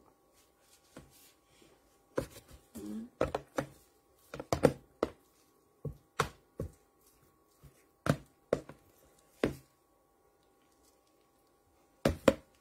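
Irregular knocks and taps of gloved hands working on a cutting board while rolling spring rolls: handling wrappers and setting down filling. The taps start a couple of seconds in and stop for a while before two more near the end.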